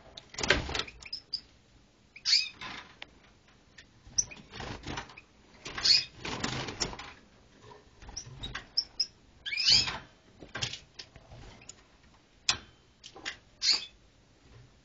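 A small pet animal's scattered short, high chirps and squeaks, with irregular scuffling noises between them.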